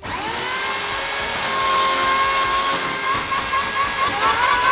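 Homelite 14-inch chainsaw starting and running with a steady motor whine. Its pitch wavers from about three seconds in as the chain cuts into the plywood panel.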